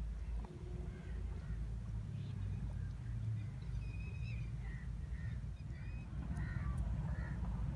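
Birds calling in short, scattered calls over a steady low rumble.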